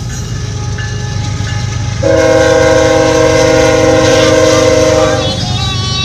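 A freight locomotive's air horn sounds one loud, steady multi-note chord of about three seconds, starting suddenly about two seconds in. It plays over the steady low rumble of the moving train.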